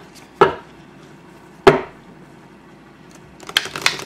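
Three sharp knocks, then, from about three and a half seconds in, the fast clicking flutter of a tarot deck being riffle-shuffled.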